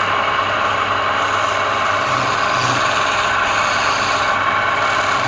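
Wood lathe running, with a steady noise of wood being worked on the spinning piece over a low, even motor hum.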